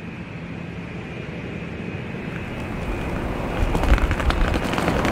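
Steady outdoor background rumble fading up, then from about three and a half seconds in the clattering clicks of a wheeled suitcase rolling over paving, with footsteps.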